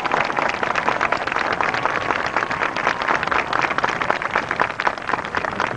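Large crowd applauding, a dense, steady patter of many hands clapping.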